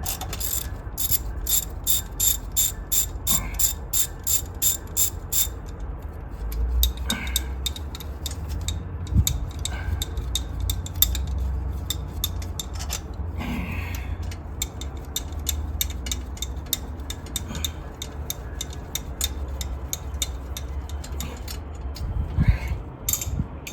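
Ratchet wrench clicking as the upper intake plenum bolts are backed out. It starts with a steady run of about four clicks a second, then goes on in quicker, uneven runs with a few knocks.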